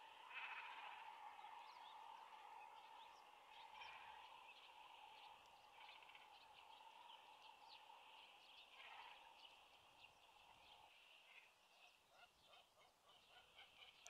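Faint outdoor ambience: a steady chorus of distant animal calls with many short, scattered chirps. There is a brief rattling call near the start, and the lower part of the chorus stops about eleven seconds in.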